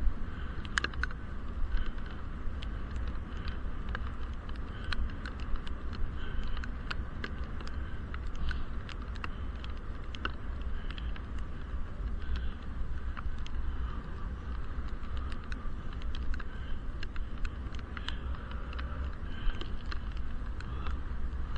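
Raindrops ticking irregularly on an action camera's sealed waterproof case, over a steady low rumble of wind and road noise muffled by the housing, while riding a bicycle in the rain.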